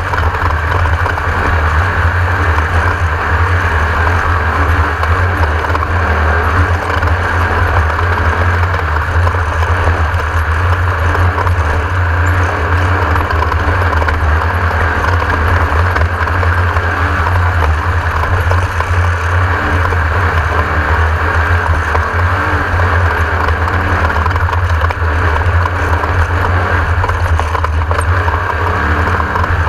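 Class 1600 off-road race car's air-cooled 1600 cc VW engine running steadily at racing speed, a loud, even drone with no letting up.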